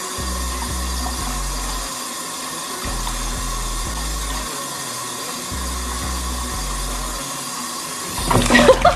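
Steady hiss of running water under background music with a low bass line in separate held notes. Near the end, a sudden loud burst of splashing breaks in.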